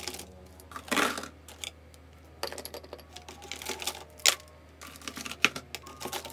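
Plastic pens and markers clicking and clattering against each other as they are handled and sorted by hand: irregular sharp clicks, a short rattle about a second in, a busier run of clatter in the middle and a single loud click just after it.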